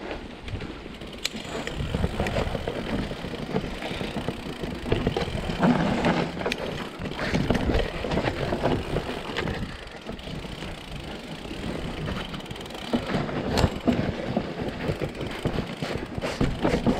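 Mountain bike riding down a rough dirt forest trail: continuous tyre rumble on the soil with the bike rattling over roots, and sharp knocks here and there.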